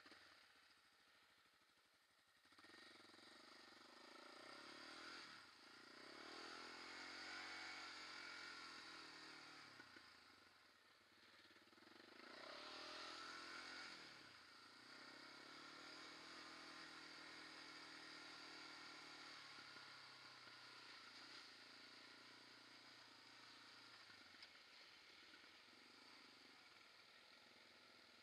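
Faint sport quad (ATV) engine riding along, revving up and down several times so its pitch rises and falls, then running more steadily near the end. It becomes audible a couple of seconds in.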